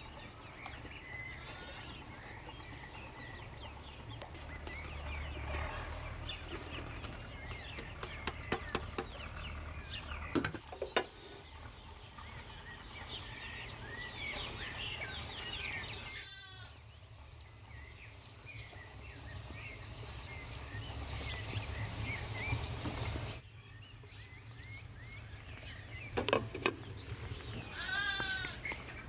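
Small birds chirping and singing around a garden, with a few sharp taps about a third of the way in. Near the end a cat gives a loud meow.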